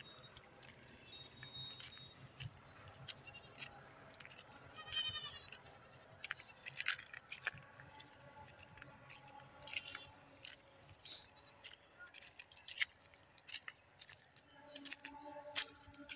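Goats and their kids bleating in a few short, high-pitched calls, the clearest about five seconds in, over scattered crunching footsteps on dry field stubble.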